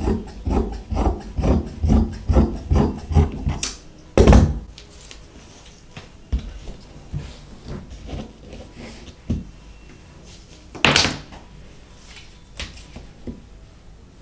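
Large tailor's shears cutting through suit fabric on a table in a quick run of snips, about three a second, for the first few seconds. A loud knock on the table follows about four seconds in, then quieter fabric handling with another loud knock near eleven seconds.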